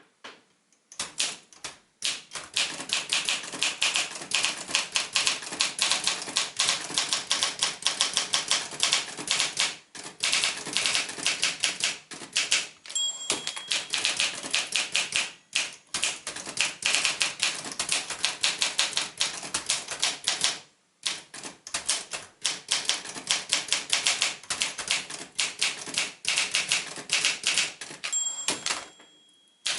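A 1963 Olympia SM7 manual typewriter being typed on at a brisk pace: fast runs of sharp key and typebar strikes, broken by short pauses. A ringing tone, the margin bell, sounds twice, about halfway through and near the end.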